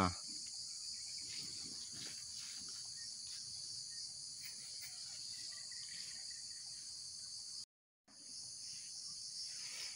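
Steady, high-pitched chorus of insects, which cuts out for a moment about eight seconds in.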